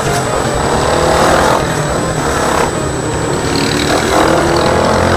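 Yamaha Sniper 150 motorcycle's single-cylinder engine running while riding, its pitch rising and falling with the throttle, under heavy wind noise on the microphone.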